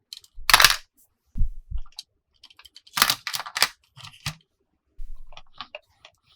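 Plastic toy and its packaging handled in short bursts: crinkling, clicks and a few dull knocks, the loudest burst about half a second in and a cluster around three seconds in.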